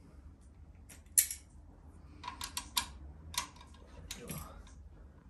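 Metal wrenches clinking as they are handled and fitted onto bolts. There is one sharp clink about a second in, then a quick run of light clicks and a few more clinks near the end.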